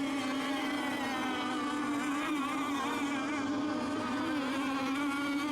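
Radio-controlled racing boat engines running at speed out on the water: a steady, buzzing drone with slight wavers in pitch.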